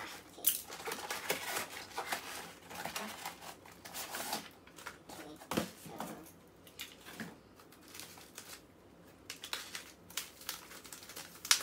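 Cardboard and paper parcel wrapping rustling and crinkling as it is handled and cut open, with scissors snipping and scattered small knocks. The rustling thins out for a couple of seconds past the middle.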